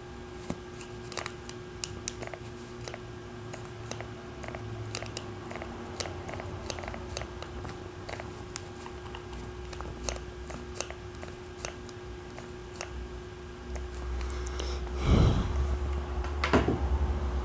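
GE Phoenix SX VHF mobile radio scanning its channels: light, irregular clicking over a faint steady hum. Two short bursts of static come near the end.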